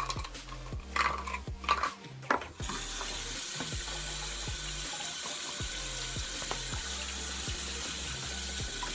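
A few handling clicks and knocks, then about two and a half seconds in a bathroom sink tap comes on and water runs steadily into the basin.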